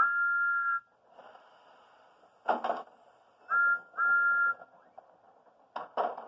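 A referee's whistle blown three times: one long blast, then a short blast and a longer one about three and a half seconds in. A thud comes about two and a half seconds in, and two quick knocks near the end.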